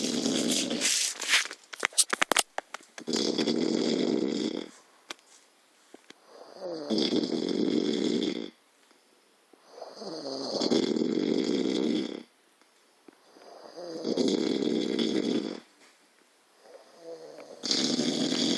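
A sleeping person snoring: one long snore about every three and a half seconds, six in all, with a scatter of sharp clicks in the first two seconds.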